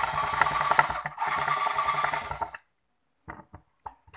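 Cordless drill-driver backing screws out of a plastic bucket cover, running in two bursts of about a second and a second and a half with a grinding rasp over its motor hum. A few light clicks follow near the end.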